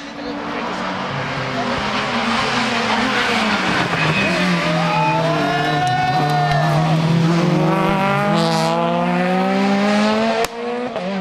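Hill-climb race car engine at high revs, its pitch sliding down and climbing again as it brakes and accelerates through the gears, with a sharp gear change about ten seconds in.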